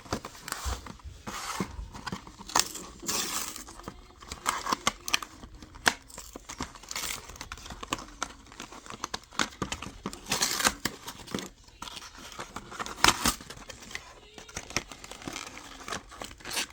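Toy packaging being handled and torn open: irregular crinkling, tearing and rustling with sharp clicks and snaps.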